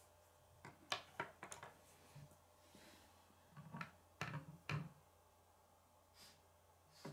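Plastic K'nex pieces clicking and knocking against a wooden tabletop as two small built sections are handled and set down. There is a cluster of sharp clicks about a second in, and a louder cluster of knocks around four to five seconds in.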